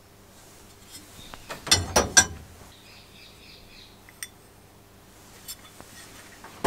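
Metal telephone bell parts being set down inside a steel sandblasting cabinet: a quick run of clanks and clatters about two seconds in, a single click a little past four seconds, and another clatter at the very end.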